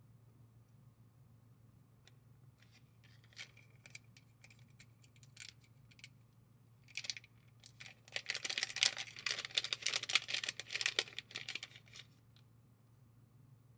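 A few light clicks of small metal knife parts being handled, then a clear plastic zip bag rustling and crinkling for about four seconds as it is worked open.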